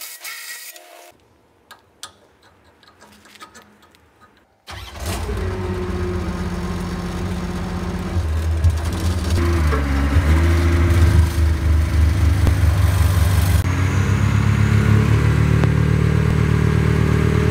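Diesel engine of a Xiagong single-drum vibratory road roller cuts in suddenly after a few near-quiet seconds and runs steadily. Near the end the sound changes to a heavier, evenly pulsing run as the drum's vibration comes on, now driven through the replaced eccentric shaft.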